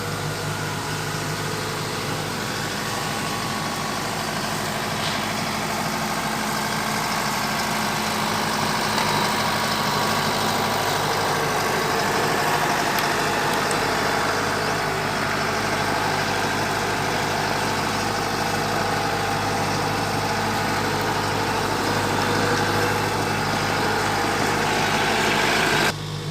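Diesel engine of a Kubota DC-105X rice combine harvester running steadily as the machine moves out, growing a little louder over the first ten seconds; the sound drops abruptly just before the end.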